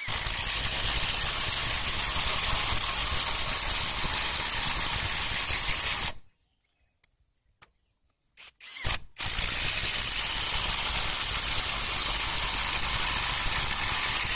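OSUKA OSID-520 cordless brushless impact wrench hammering as it drives a long hex-head roofing screw through a hex socket into a wooden beam, for about six seconds. After a pause of a few seconds and a short blip of the trigger, it hammers again, driving a second screw.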